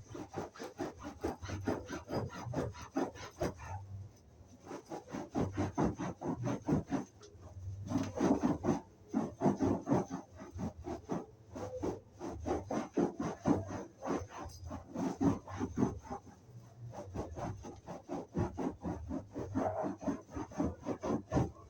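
A damp sponge rubbed quickly back and forth over sofa upholstery, about four strokes a second, with a couple of short pauses.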